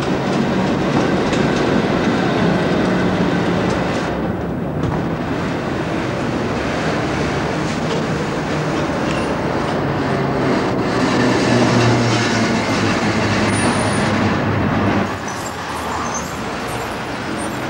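Tram works car hauling flat wagons rolling past on street tram track: a steady rumble and clatter of steel wheels on the rails, growing quieter about fifteen seconds in.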